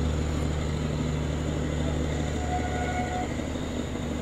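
Steady low hum and rumble of a train, with a faint, short higher tone about two and a half seconds in.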